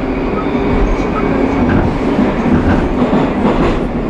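Moscow Metro train running at speed through the tunnel, heard from inside the carriage: a loud, steady rumble of wheels and motors with a faint whine and occasional clicks of the wheels over the rails.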